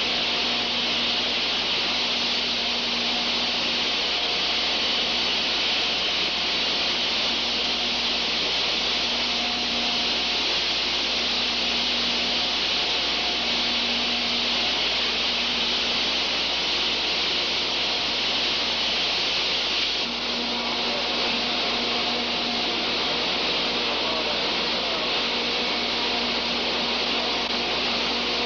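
Steady loud hiss of a spray hose washing down the ground, with a faint low hum coming and going beneath it.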